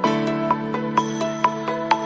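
Background music: short, bright melody notes about twice a second over held chords, with a new chord coming in at the start.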